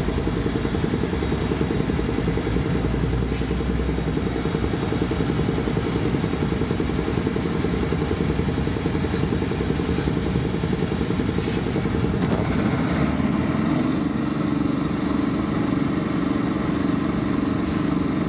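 Semi truck's diesel engine idling steadily close by, a deep rapid rumble, with a steadier hum joining about two-thirds of the way in. A few brief faint hisses sit over it.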